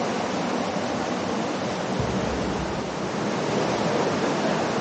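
Creek water rushing steadily through the canyon narrows.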